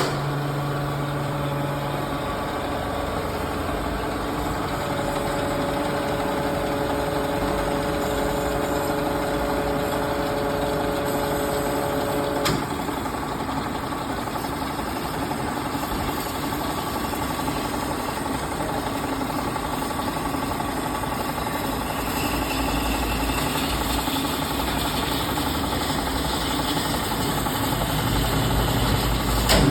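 AMADA HA250 horizontal bandsaw running: a steady machine hum with several motor tones over a noisy mechanical whir. About twelve seconds in there is a sharp click, and a pair of higher hum tones stops.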